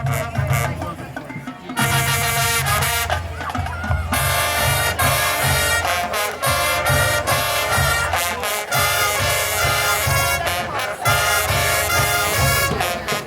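High school marching band playing a rock arrangement: low drums keep a steady beat while the brass section enters with loud chords about two seconds in and grows fuller a couple of seconds later.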